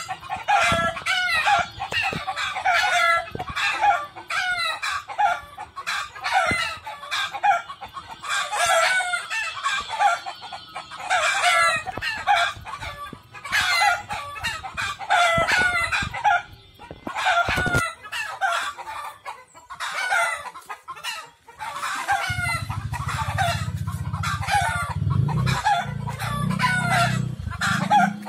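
A flock of chickens and roosters cackling and clucking without a break, in quick repeated calls. A low steady rumble joins for the last several seconds.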